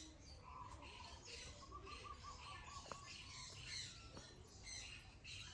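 Faint chorus of small birds chirping over and over, with a short rapid trill in the first couple of seconds.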